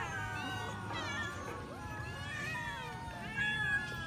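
A crowd of domestic cats meowing at once, many overlapping calls rising and falling without a break: hungry cats waiting to be fed.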